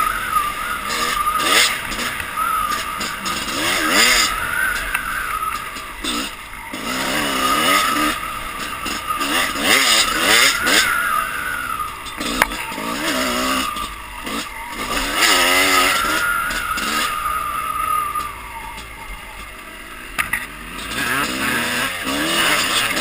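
Dirt bike engine revving up and down again and again as the rider works the throttle and shifts along a rough trail, heard from the rider's helmet. The engine eases off for a couple of seconds late on, then revs up again.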